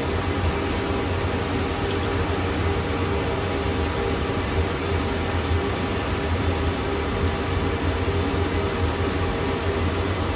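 Steady fan and machine noise of running server-room equipment: an even rushing hiss over a low hum, with a few steady higher tones and no change throughout.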